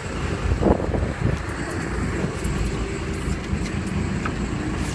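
Boat engine running steadily, a low rumble.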